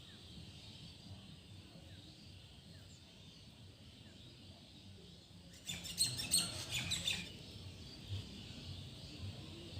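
Birds chirping in the background over faint room noise, with a quick run of high chirps about six seconds in that lasts a second and a half.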